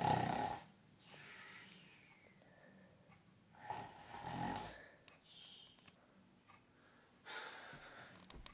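A person snoring loudly: two heavy rasping snores about four seconds apart, each followed by a softer breath out, then a shorter breathy sound near the end.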